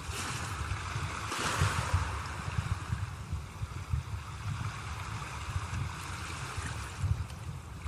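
Sea waves washing on a shore in a steady hiss that swells as a wave surges about a second and a half in. A gusty low rumble of wind buffets the microphone underneath.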